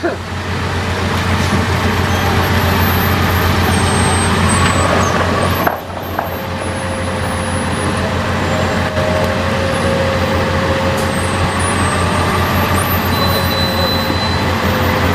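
Excavator-mounted Daedong DTVH700T telescopic vibratory hammer running with the excavator's diesel engine: a loud, steady heavy hum with a rapid even pulsing, as it vibrates a steel sheet pile. The sound dips briefly about six seconds in.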